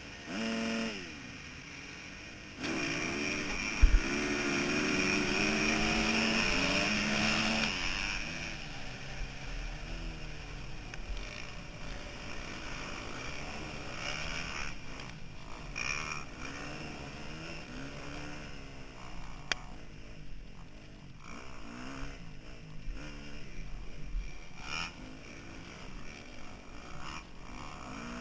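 Motocross dirt bike engine heard from an onboard camera, launching hard with the pitch climbing and dropping through quick gear changes for several seconds, with a sharp knock about four seconds in. It then runs at varying throttle, quieter, with wind buffeting the microphone.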